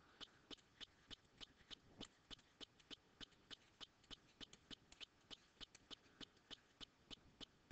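Near silence apart from faint, short ticks, about five a second: a stylus tapping and sliding on a tablet surface as words are handwritten.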